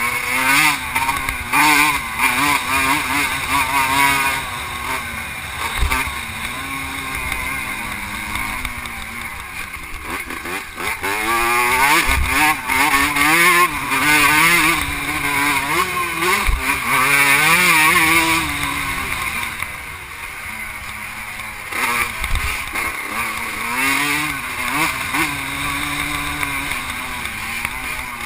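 Vintage 125cc two-stroke motocross bike engine under race load, its pitch rising and falling again and again as the throttle is worked through the gears, with wind rushing over the mounted camera and a few low thumps.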